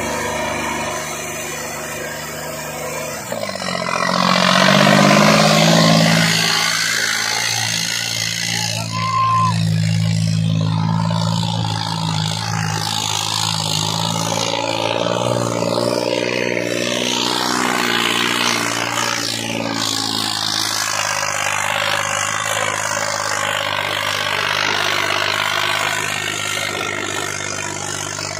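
John Deere tractor's diesel engine revving up about three and a half seconds in, then running hard under heavy load as it drags a chained disc harrow through ploughed soil. A short high tone sounds briefly about nine seconds in.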